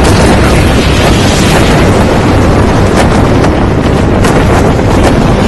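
Cinematic explosion sound effects: a loud, continuous roar of blast noise with a couple of sharp cracks about three and four seconds in.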